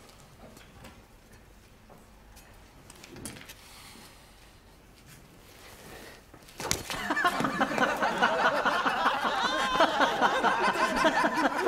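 A single sharp blow of a blade chopping through a candle about two-thirds in, followed at once by men laughing loudly at the miss.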